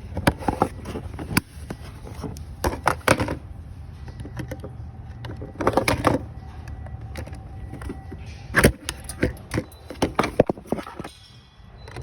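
Irregular clicks, knocks and rattles of parts being handled during work on a car, in clusters, over a steady low hum.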